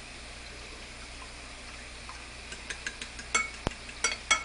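A fork beating eggs and milk in a pie dish, clinking against the dish in a quick run of sharp, ringing strikes in the second half.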